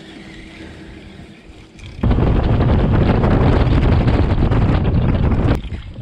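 Loud wind buffeting the microphone: a low, even rumbling rush that starts suddenly about two seconds in and cuts off suddenly about three and a half seconds later, with fainter wind hiss before and after it.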